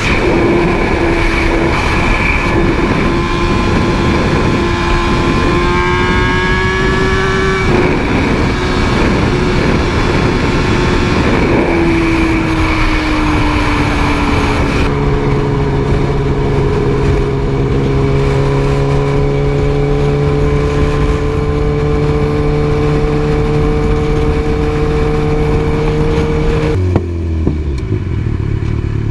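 Motorcycle engine running steadily under way, with wind and road noise. Its pitch sags about twelve seconds in, and the sound changes abruptly near the end.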